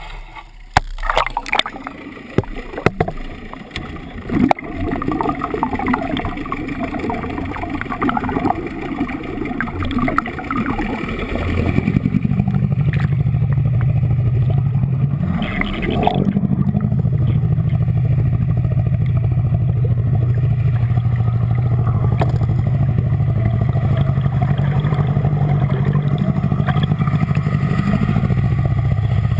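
Small Yamaha 9.9 outboard motor running, heard underwater through a GoPro's waterproof housing. For the first dozen seconds there are irregular splashes and knocks. Then it settles into a steady low drone with propeller wash, briefly rising and falling in pitch about sixteen seconds in.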